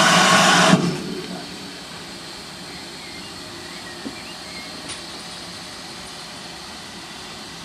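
Loud steam hiss from GWR 4200 Class 2-8-0 tank engine 4270, standing still, cutting off sharply about a second in. A low, steady hiss follows.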